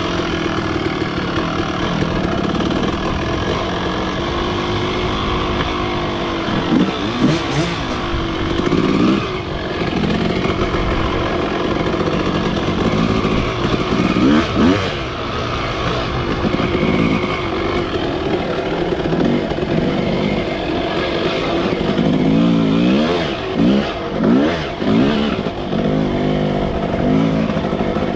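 2022 Husqvarna TE 150i two-stroke dirt bike engine running under load while trail riding, its pitch rising and falling with the throttle. There are a few short swings, then a run of quick blips near the end.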